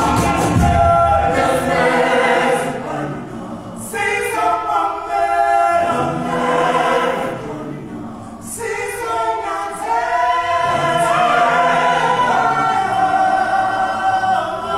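Choir singing unaccompanied in harmony, several voices holding long notes, with brief breaks between phrases about four and eight seconds in.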